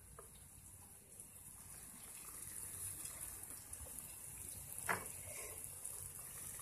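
Faint hiss of a fish curry cooking in a pan on the stove, growing slightly louder, with one light clink of a utensil about five seconds in.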